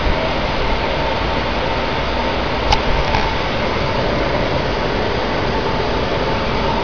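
Steady rushing air noise of cooling blowers in a UHF TV transmitter room, with a faint steady whine and a single sharp click about three seconds in.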